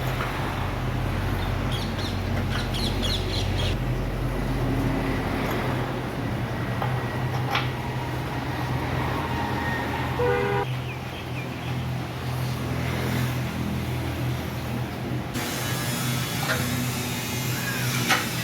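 Workshop noise: a steady low mechanical hum with a few sharp metallic clinks, as from tools on car parts during steering and suspension reassembly.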